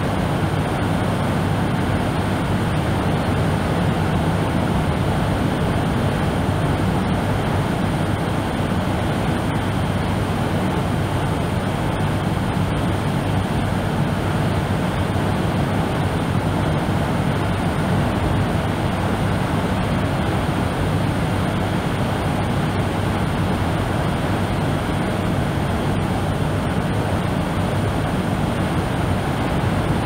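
Steady, deep bass-heavy brown noise, an even rumbling hiss with no swells or breaks. The uploader presents it as beach surf recorded from indoors.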